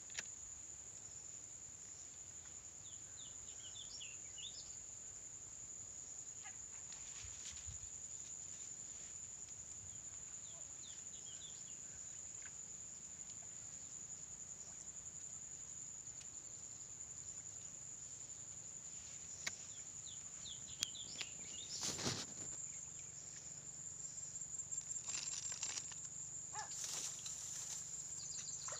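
Outdoor ambience: a steady high insect drone, with a few short bird chirps. Brief rustling and brushing of reeds sounds about two-thirds of the way through and again near the end.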